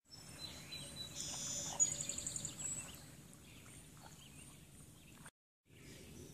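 Songbirds singing: a few high whistled notes, then a quick high trill about two seconds in, over faint outdoor ambience. The sound drops out briefly about five seconds in.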